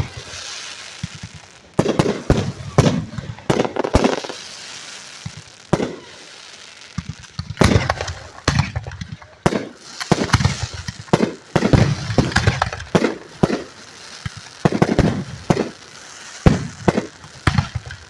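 Aerial fireworks shells bursting directly overhead: a rapid, irregular series of loud bangs in clusters, with crackling and hissing between them.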